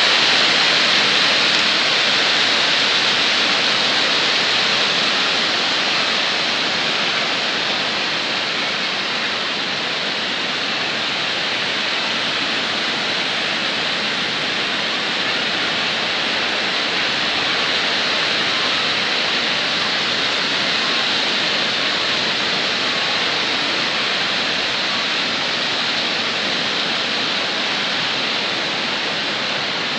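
Water pouring over a dam spillway into churning whitewater: a steady, loud rushing noise.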